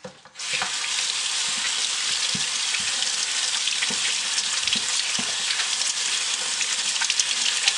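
Faucet turned on about half a second in, then water running steadily from the tap over soapy hands as they are rinsed in the sink.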